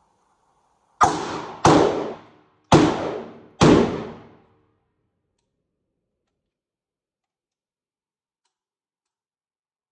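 Four gunshots in a little under three seconds, each with a short fading echo.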